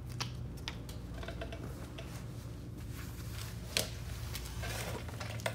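Faint scattered clicks and light rustling, with one sharper click a little before four seconds in, over a steady low hum.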